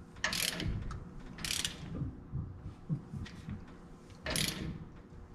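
Hand ratchet wrench clicking in three short bursts as its handle swings back between pulls, tightening the nut that draws the tapered king pin lock pin into the steering knuckle.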